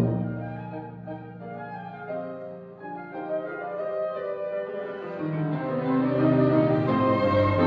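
Instrumental ensemble music: a loud chord dies away at the start, then a soft passage of sustained notes that gradually swells again.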